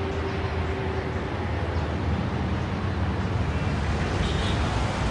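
Steady rumble and hiss of city traffic, with no single event standing out.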